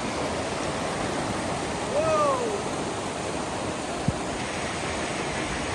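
Steady rush of a waterfall and river. A short call about two seconds in rises and falls in pitch, and a single sharp click comes about four seconds in.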